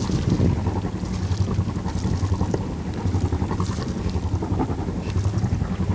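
Wind buffeting the microphone aboard a boat underway at sea, over a low steady hum that fits the camera boat's engine, with a few brief splashes.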